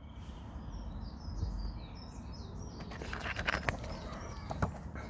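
Small birds chirping in the background in quick short notes. About three seconds in come a few sharp clicks and rustles of handling.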